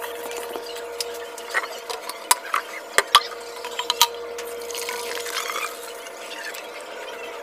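Plastic bottles and a cup handled on a tabletop: a few sharp clicks and knocks, and a short stretch of liquid sound a little past halfway, over a steady low hum.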